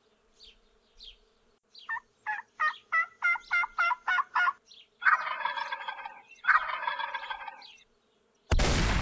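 Wild turkey calls: a run of about eight yelps at roughly three a second, then two long gobbles, followed near the end by a sudden loud gunshot.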